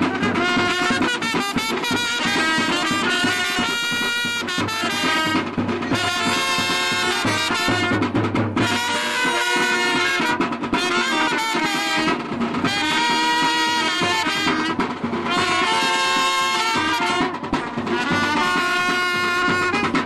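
Brass band music led by trumpets, playing held notes in phrases with short breaks, over light percussion.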